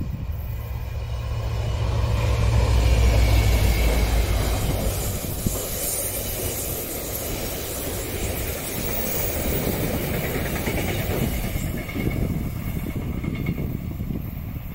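Irish Rail 071 class diesel locomotive passing with a continuous welded rail train. Its engine hum is loudest a few seconds in, then the long rake of rail-carrying wagons rolls by on the track.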